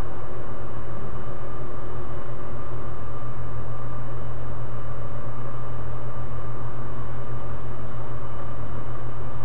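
Steady low hum with hiss and a few faint steady tones above it, unchanging throughout.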